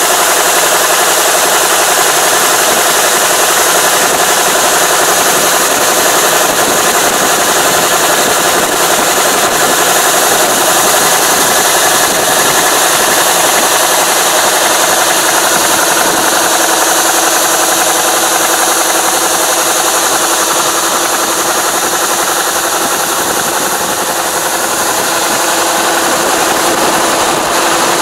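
Kubota ARN460 combine running steadily at working speed while its unloading auger pours threshed rice grain into a wooden truck box: a loud, unbroken machine drone mixed with the rushing hiss of falling grain.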